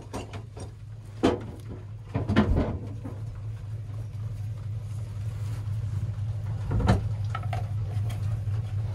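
Six-cylinder 6D16 diesel engine running steadily, gradually getting louder from the middle on, with a few sharp knocks of metal over it about a second in, between two and three seconds in, and near seven seconds.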